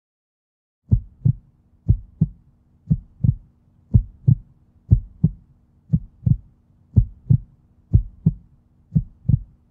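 Heartbeat sound effect: a steady lub-dub double thump about once a second, starting about a second in, over a faint low hum.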